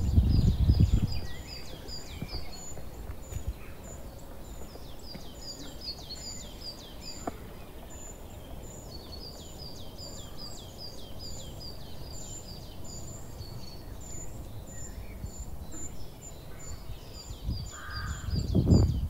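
Small songbirds singing, long runs of quick, high, repeated notes, with a short, harsher crow-like call near the end. A low rumble sounds at the start and again near the end.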